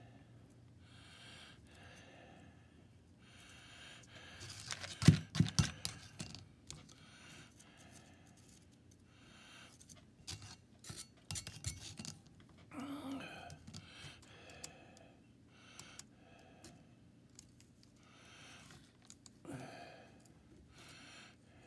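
A pointed pick scraping and picking loose, bulged filler material out of a Caterpillar 60 head gasket around its water-jacket holes. It makes short scratches and sharp clicks, with the loudest cluster about five seconds in and another group a few seconds later.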